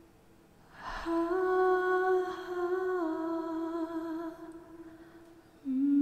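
A woman humming slow, long-held notes: after a brief pause a note begins about a second in, steps down in pitch partway and fades, and a new, lower note starts near the end.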